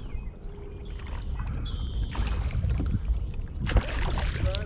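Steady low rumble of water and wind around a bass boat while a hooked largemouth bass is played on the line, with a short splash just before four seconds in as the fish thrashes at the surface.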